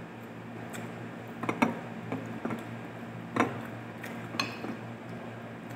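A spoon clinking and scraping against a glass bowl several times, loudest about a second and a half in and again past three seconds, over a steady low hum.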